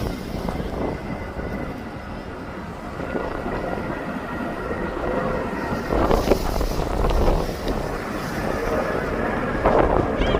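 Strong wind buffeting the microphone in gusts, over the steady whine of a jet airliner's engines at takeoff power.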